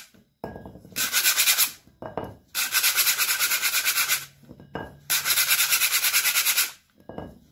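Sanding block rubbed rapidly back and forth over a rusty iron hex dumbbell head, scouring off rust and old paint. It comes in three spells of quick strokes with short pauses between.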